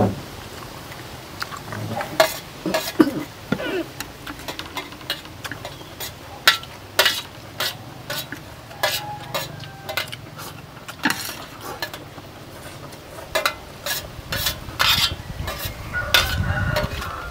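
Eating utensils clicking and scraping against plates as people eat stir-fried noodles: an irregular run of sharp clicks.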